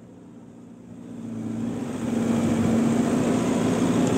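An offroad 4x4's engine running steadily while it drives the rocky mountain track, with a low hum and rough noise. It fades in over the first two seconds, then holds steady.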